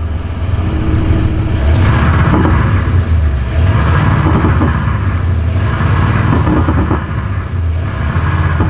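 Engine-style exhaust note produced by a THOR electronic exhaust system on a Volvo XC90: a speaker-generated sound imitating a sporty engine. It holds a steady low rumble and swells several times as if revving.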